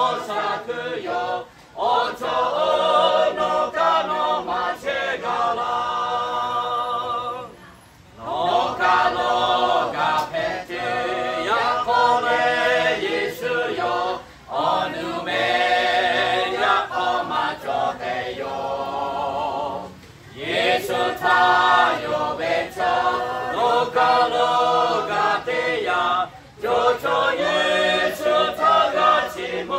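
Mixed choir of men's and women's voices singing together unaccompanied, in long phrases broken by short pauses for breath about every six seconds.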